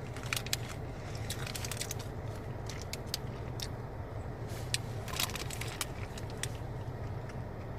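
A man eating a hamburger, chewing a bite, with scattered crackling clicks, over a steady low hum.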